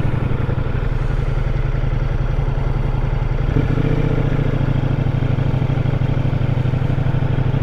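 Ducati Multistrada V4S's V4 engine running steadily at low parking-lot speed, its note shifting slightly about three and a half seconds in.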